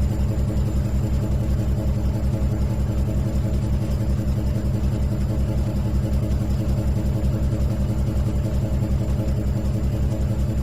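Electric motor running steadily, a low hum with a fast, even pulse.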